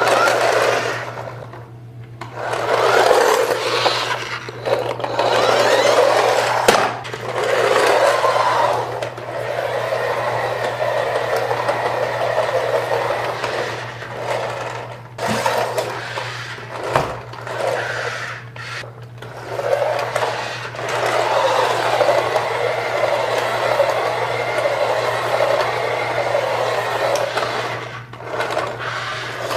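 Remote-control Tokyo Mater toy tow truck's small electric motor whirring as it drives, in runs of a few seconds broken by short pauses as it stops and starts again.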